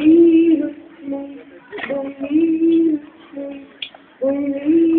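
A woman singing, holding long, level notes with short breaks between phrases.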